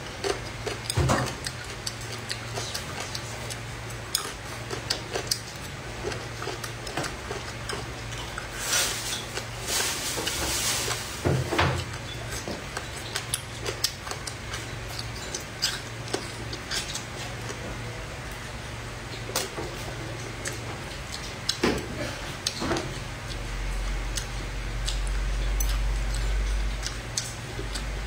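Chopsticks clicking and scraping against a plate while picking apart braised fish, with mouth and chewing sounds. A steady low hum runs underneath, and a low rumble lasts a few seconds near the end.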